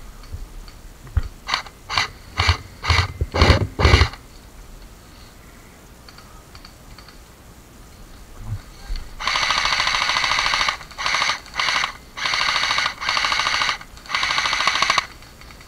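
Airsoft electric guns firing: about six quick single shots in the first few seconds, then, from about nine seconds in, six bursts of full-auto fire, the first and longest lasting about a second and a half.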